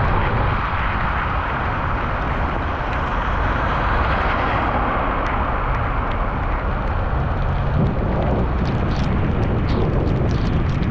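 Heavy rain and gusting wind buffeting the microphone, with traffic passing on the wet road. From about eight seconds in, raindrops tap sharply on the camera.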